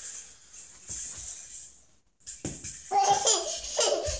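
A baby laughing in repeated short bursts: softer in the first half, a brief break about two seconds in, then louder, quick giggling through the rest.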